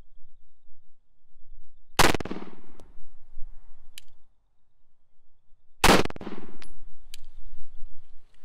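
Two pistol shots from a 9mm Glock firing 124-grain Federal HST hollow points, about four seconds apart, each followed by a short echo.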